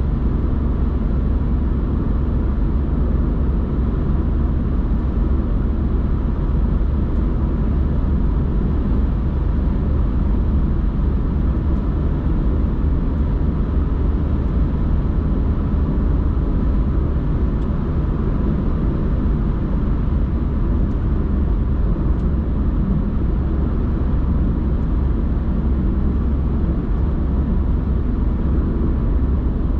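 Steady road noise inside a car's cabin while cruising: an even low rumble of tyres and engine, unchanging throughout.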